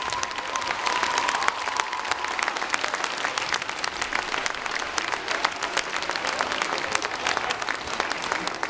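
Audience applauding after a dance performance: many hands clapping together in a dense, steady patter.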